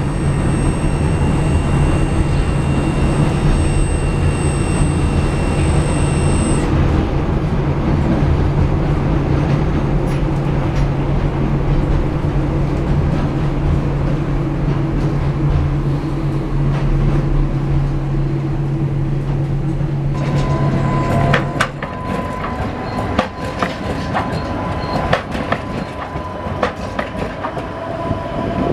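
Škoda 15T low-floor tram in motion, heard from inside the car: a steady running hum and rumble of motors and wheels on the rails, with a thin high whine that stops about seven seconds in. About twenty-two seconds in it gives way to a Tatra T3 tram going by, its wheels clicking over the track with a steady squeal.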